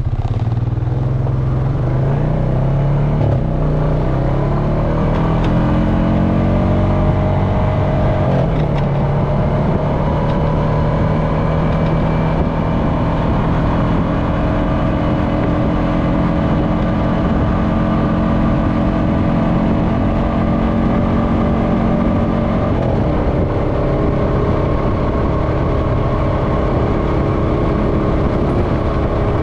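Honda FourTrax Foreman ATV engine running under way, its pitch climbing steadily over the first several seconds as it gathers speed, with a short break about eight seconds in, then holding an even pace.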